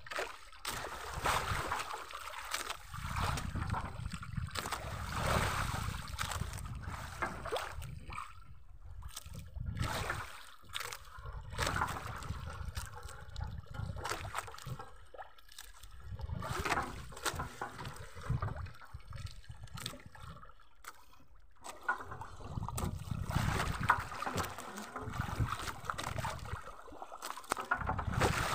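Sea water sloshing and lapping against a small outrigger boat's hull, with wind rumble on the microphone and scattered light clicks and knocks from fishing line and hooks being handled.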